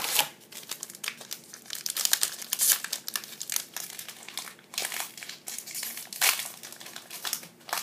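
Foil wrapper of a Panini Score hockey card pack crinkling and rustling irregularly as it is pulled from the box and handled to be opened.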